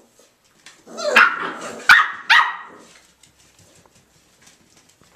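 Irish Jack Russell Terrier puppies barking in play: three sharp, high yaps in quick succession about a second in.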